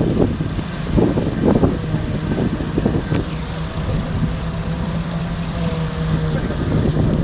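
An engine idling steadily, with indistinct voices near the start.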